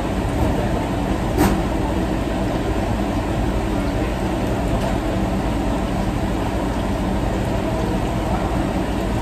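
Steady roar of commercial kitchen equipment, the exhaust hood and range running, with one sharp clack about a second and a half in.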